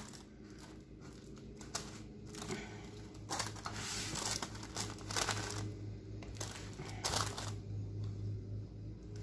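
Parchment paper crinkling and rustling in irregular pushes and scrapes as a silicone spatula presses sticky granola-bar mixture firmly into a lined baking pan.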